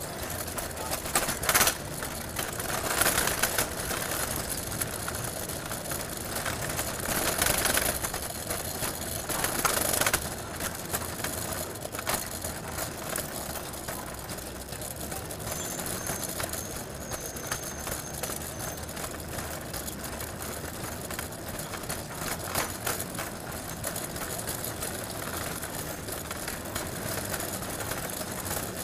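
City street traffic ambience: a steady hum of vehicles, with a few louder swells as traffic passes in the first ten seconds and a sharp knock about a second and a half in.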